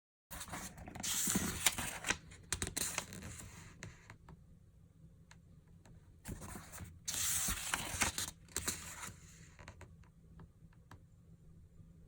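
Rustling and scraping from handling packaging, in two longer stretches, one starting about half a second in and one about six seconds in, with small clicks and taps between them.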